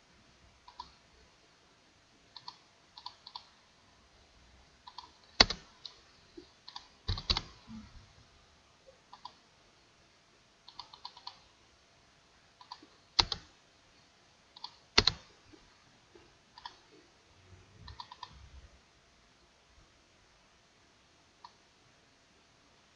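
Irregular clicking of a computer mouse and keyboard, with a few much louder, sharper clicks among the quieter ones.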